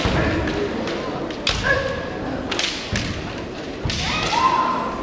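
Kendo bout: sharp knocks and thuds of stamping feet and bamboo shinai striking, with drawn-out kiai shouts from the fencers about a second and a half in and again near the end.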